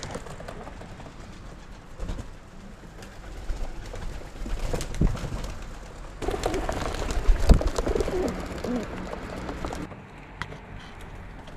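Feral pigeons cooing on a window ledge, most clearly in the second half, with a few short low thumps.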